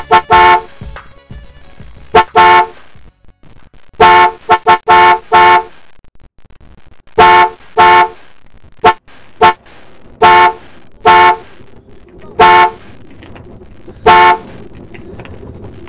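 Clear lake ice singing under tension: short, loud, ringing pings and cracks, some single and some in quick runs of two to five, with a low hiss between them.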